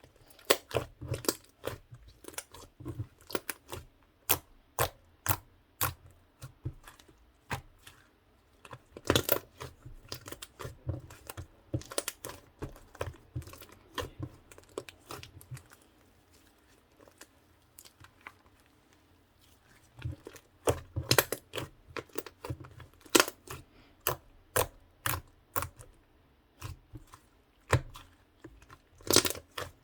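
Mint-chocolate slime being worked by hand, with a run of sharp wet pops and clicks as it is pressed, stretched and folded; the pops thin out and go quieter in the middle for several seconds, then come thick again.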